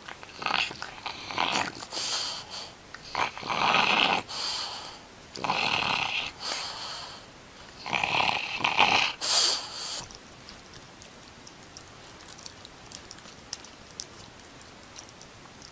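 French bulldog grunting and huffing while it plays, in short irregular breathy bursts that stop about ten seconds in.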